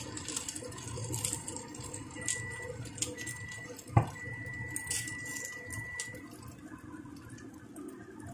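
Dumplings sizzling and crackling in a little oil in a nonstick frying pan, with one sharp tap of a spatula against the pan about four seconds in. A faint steady high tone comes and goes in the middle.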